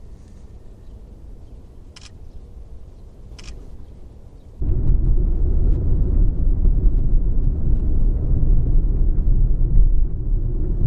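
Faint low outdoor background with two brief clicks, then, about four and a half seconds in, a sudden loud low rumble of a car driving on an unpaved dirt road, heard from inside the cabin: engine and tyre noise.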